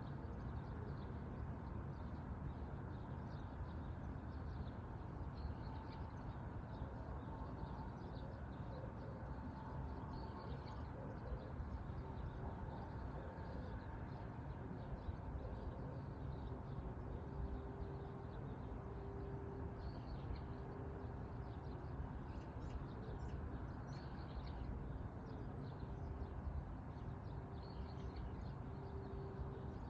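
Outdoor birdsong ambience: small birds chirp faintly and intermittently over a steady low rumble. In the second half a low, repeated call sounds several times, each note about half a second to a second long.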